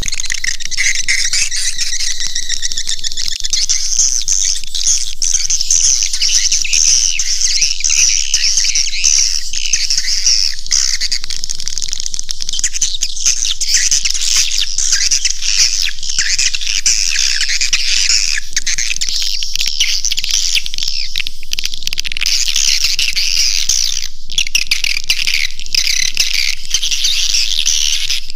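Swiftlet caller track: dense, continuous, high-pitched twittering of many overlapping swiftlet calls. It is a lure sound played to draw swiftlets into a nesting house.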